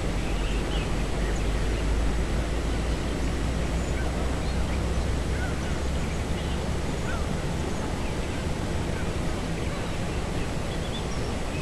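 A large flock of waterbirds calling, many short overlapping calls over a steady rushing noise with a low rumble.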